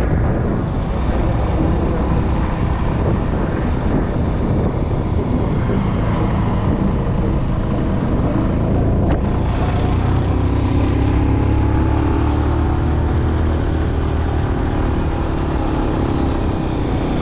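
Motorcycle engine running at road speed under wind noise on the microphone, with the engine note drifting up and down a little in the second half.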